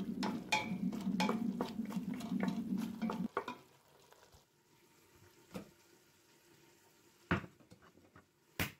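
Wooden spatula stirring and scraping a thick, sizzling sauce in a steel pot as it reduces until the liquid cooks off, for about three seconds; it cuts off suddenly, followed by a few faint separate clicks.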